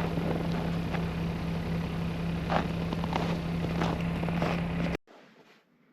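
Small tractor's engine running steadily under load while plowing snow, a constant drone with a few short knocks over it; it cuts off abruptly about five seconds in.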